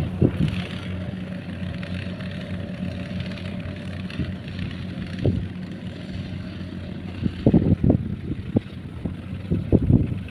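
Kubota DC-70 Plus combine harvester's diesel engine running steadily under harvesting load as it cuts rice. Irregular low thumps come in over the hum in the last few seconds.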